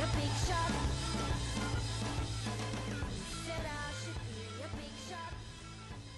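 Background music with a steady low bass line and gliding melodic lines, fading out gradually.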